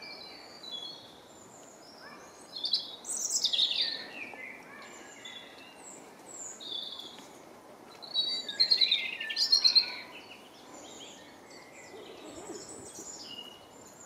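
Rose-ringed parakeets calling: short, shrill, falling screeches, louder in two bursts, a few seconds in and again past the middle.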